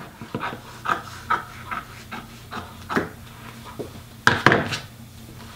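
Scissors snipping through fleece fabric, one short cut every third to half second, followed by two louder knocks about four seconds in.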